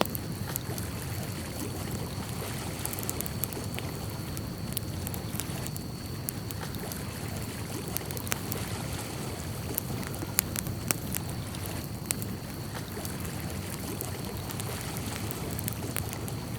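Outdoor nature ambience: steady water noise like a stream or lapping water, with scattered small ticks and clicks throughout and a faint steady high tone.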